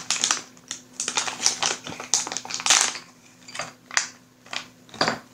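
Small plastic bags of resin miniatures being handled: quick crinkles and light clicks, several a second, thinning out after about three seconds.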